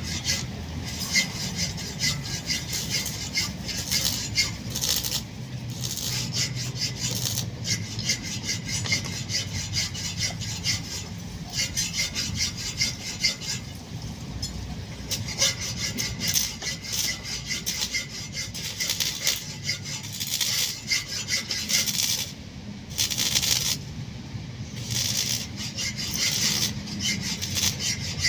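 Continuous rough scraping and rasping made of many quick strokes, with a few brief lulls about halfway through and again past two-thirds of the way.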